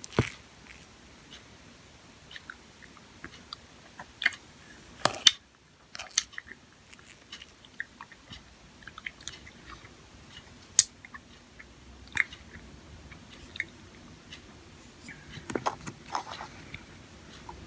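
Close-miked chewing and biting, mouth sounds with scattered sharp clicks and smacks.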